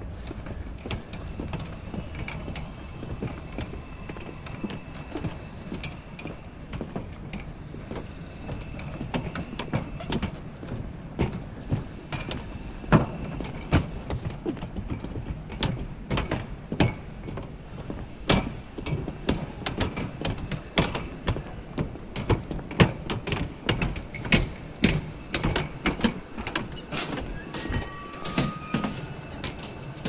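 Footsteps on hard paving, sharp regular steps about twice a second that become frequent and clear from about ten seconds in, over a steady low rumble of city background. A few brief high tones sound near the end.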